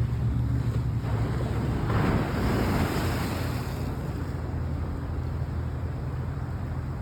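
Ocean waves washing on the shore under heavy wind rumble on the microphone, with one wave surging louder about two seconds in.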